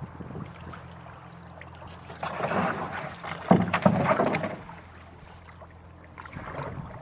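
Canoe paddle strokes in river water: two splashing, gurgling pulls about a second apart in the middle, the second starting with a sharp knock, then water dripping and trickling off the blade.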